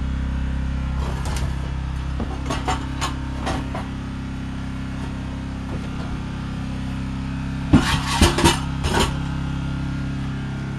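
Onan generator set engine running steadily while warming up after a cold start. Over it come a few sharp knocks in the first few seconds, and a louder burst of clattering knocks about eight seconds in.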